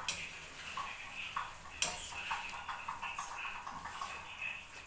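Metal spatula scraping and tapping against a metal wok while stirring pieces of duck, a run of light ticks and clinks with one sharper clink about two seconds in.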